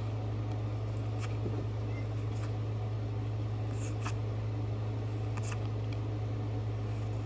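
Steady low hum with faint, short clicks and rustles every second or so as Pokémon trading cards are handled and slid through the hand.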